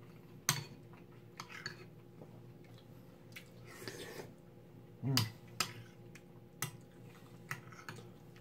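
Metal spoon and chopsticks clicking against a ceramic bowl of curry rice during a meal: scattered sharp clicks, about seven of them, with a brief eating sound near the middle as a mouthful is taken.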